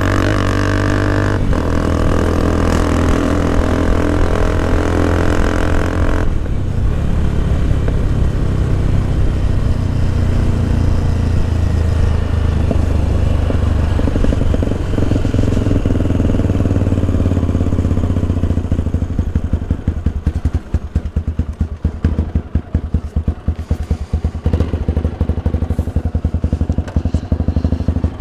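Motorcycle engine running steadily under throttle, with a brief dip about a second and a half in. About six seconds in the throttle closes and the engine drops to a low hum as the bike slows. In the last several seconds it settles into an uneven, pulsing idle.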